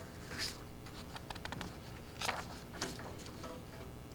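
Quiet room tone with a few faint, brief rustles and a run of small soft clicks around the middle.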